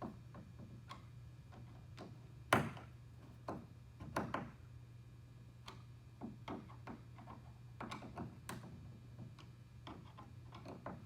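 Irregular clicks and knocks of a carry-handle screw being driven by hand into a plastic kayak hull, with one louder knock about two and a half seconds in, over a steady low hum.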